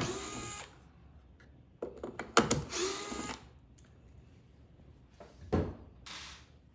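Powered screwdriver whirring in three short bursts as it backs out three screws, with sharp knocks of the tool and parts being handled between the bursts.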